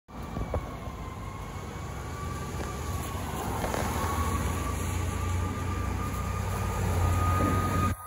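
Distant fire engine siren, a single steady whine slowly rising in pitch as the engine approaches, over the low hum of idling traffic.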